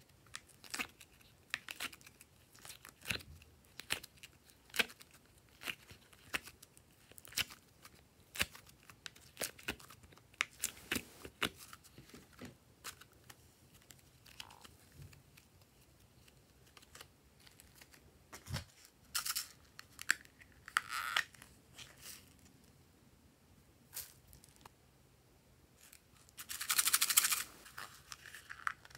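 Soft modelling clay handled in silicone moulds: a run of short sticky clicks and peeling sounds as it is pressed and pulled out, thinning out midway, with a longer tearing rustle near the end.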